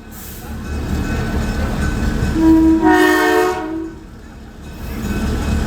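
Nathan M3 three-chime air horn on an NKP GP9 diesel locomotive sounding one blast of about a second and a half, a little over two seconds in, over the steady low rumble of the train.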